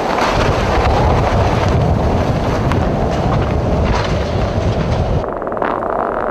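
Strong storm wind blowing hard, with deep, heavy buffeting on the microphone. The deep part cuts off suddenly about five seconds in, leaving a thinner rushing noise.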